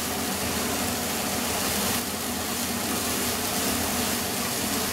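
Steady sizzle of chopped onions, green chilies, tomatoes and tutti frutti sautéing in oil in a frying pan.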